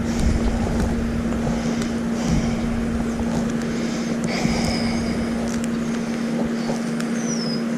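Steady rush of flowing creek water with wind on the microphone, under a steady low hum, and a few faint high bird chirps.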